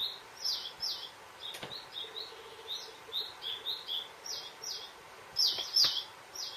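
A small bird chirping over and over in short, high chirps. A faint electronic organ note is held for about a second, about two seconds in, and there are a couple of soft knocks.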